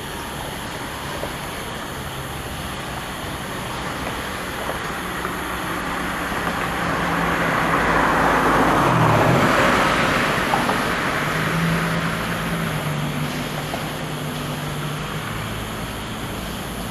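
Freight cars rolling past on the track, a steady rumble and rattle of steel wheels on rail. Around the middle a louder whooshing swell rises over a few seconds and fades again.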